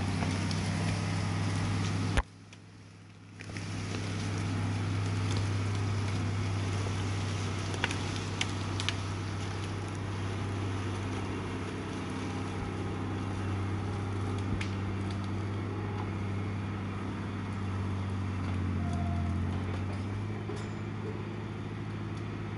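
Farm tractor's diesel engine running steadily under load as it drags a log up a hill, with a few sharp cracks about eight seconds in. The sound drops out briefly about two seconds in.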